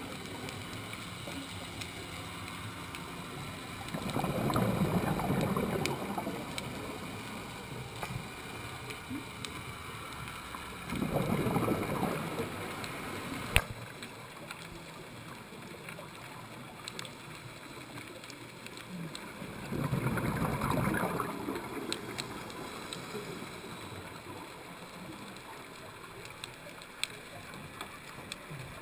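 Scuba regulator exhalations underwater: three bubbling rushes of about two seconds each, several seconds apart, over a steady underwater hiss. A single sharp click comes about halfway through.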